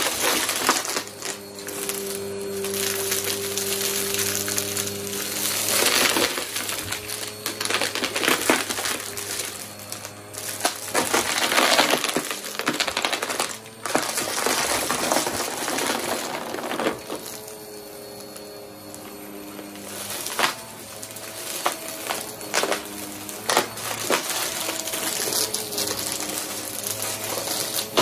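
Upright bagless vacuum cleaner running over carpet, sucking up coins and small debris that rattle and crackle continuously up into its clear dust canister. The rattling swells and eases as the vacuum passes over the scattered coins, and it thins out for a few seconds past the middle.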